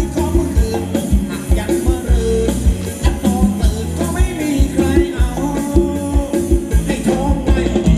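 Live band playing upbeat dance music, with a steady drum beat, bass and a melody line over it.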